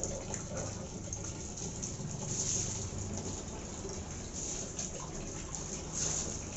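Water poured over vegetables in a plastic basin, splashing as they are rinsed, in surges: one about two and a half seconds in and a louder one near the end.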